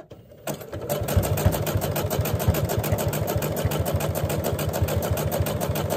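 Electric sewing machine starting about half a second in and then running steadily, sewing a zigzag stitch through cotton fabric and batting. The needle mechanism beats in a fast, even rhythm.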